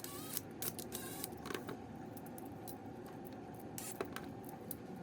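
Faint, scattered clicks and light scrapes of a wire being handled and worked onto the line terminal of a GFCI outlet.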